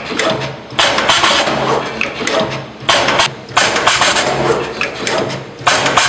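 Automatic wire stripping, twisting and soldering machine cycling: four sudden hiss-like bursts of noise, each cut in abruptly and fading over about a second, with a low hum coming and going between them.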